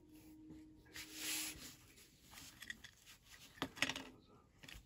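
A handmade fabric junk journal being handled and opened: soft rustling of cloth and paper, then a few sharp taps and clicks a little under four seconds in.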